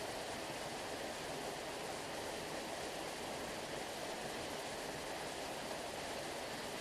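Sea water rushing in a steady, even hiss that sounds like a waterfall, with no separate wave breaks standing out.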